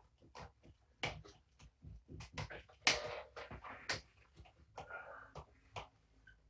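Faint scattered clicks, taps and short rustling bursts of kittens moving about and playing in the room.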